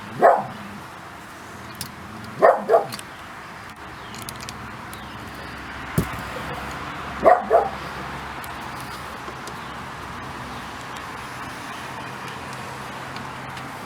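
A dog barking: one bark right at the start, then two quick double barks, about two and a half and seven seconds in.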